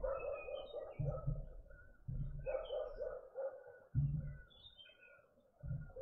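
Garden birds calling: scattered short high chirps over a lower run of quickly repeated notes, broken several times by low rumbles about a second long.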